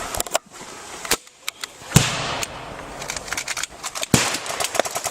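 Airsoft guns firing: a scatter of sharp cracks and clicks, the loudest about two seconds in.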